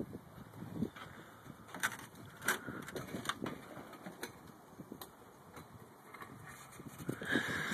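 Metal lawn-chair legs sliding and scraping across pool ice, with scattered sharp ticks and a louder scrape about seven seconds in.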